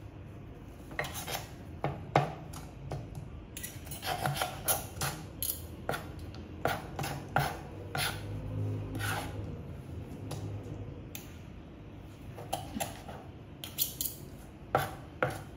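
Knife and fork scraping and tapping on a plastic cutting board while shredding cooked chicken: irregular clicks and scrapes, with a quieter stretch about two-thirds of the way through.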